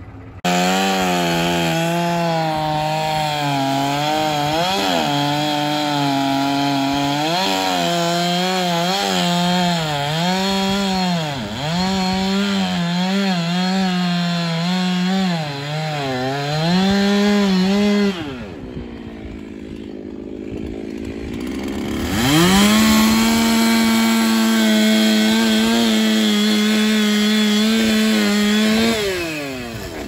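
Two-stroke chainsaw bucking a large oak log. The engine note dips and recovers repeatedly as it loads up in the cut. About eighteen seconds in it eases off, then revs back up and holds a steady high pitch for several seconds before letting off near the end.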